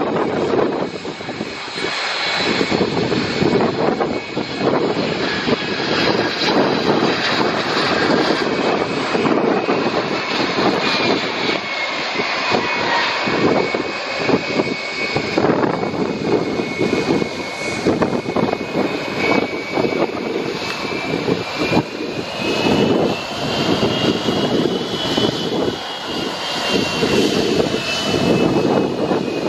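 Boeing 767-300 jet engines on approach and landing: a steady jet roar with a high fan whine that climbs in pitch about three-quarters of the way through, then eases back.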